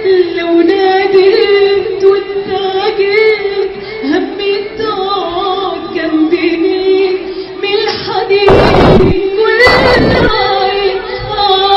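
A woman singing over music, holding long wavering notes. Two short bursts of noise cut through about two-thirds of the way in.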